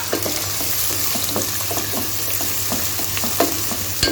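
Chopped onions and whole spices sizzling in hot soybean oil in a nonstick pan, with a steady hiss. They are stirred in short repeated scrapes, and there is a sharper clack a little after three seconds and again at the end.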